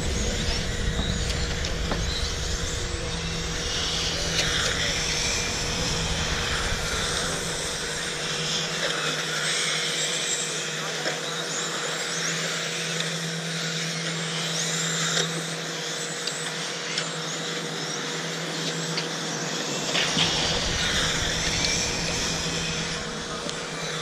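Electric radio-controlled touring cars racing around a track, their motors whining up and down in pitch again and again as they accelerate and brake through the corners.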